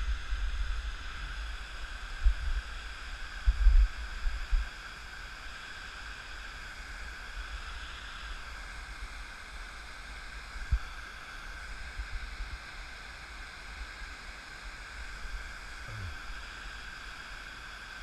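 Water spilling down a stepped dam spillway, a steady rushing. Low rumbles and a few thumps on the microphone in the first few seconds.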